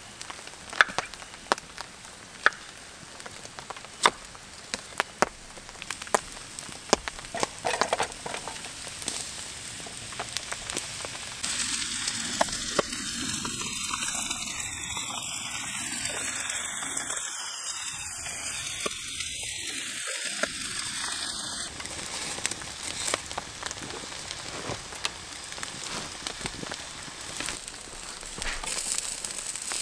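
Campfire crackling with sharp pops under meat patties sizzling on a wire grill grate. About eleven seconds in, a louder steady sizzle sets in as a pan of vegetables fries over the fire.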